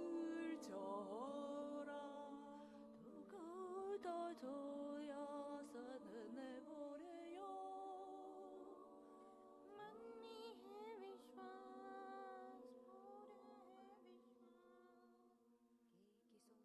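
Layered women's voices singing and humming long held notes a cappella over a steady low held tone, with occasional sliding pitches, slowly fading out toward the end.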